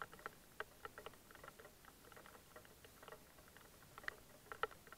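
Faint, irregular light ticks of raindrops pattering, a few each second.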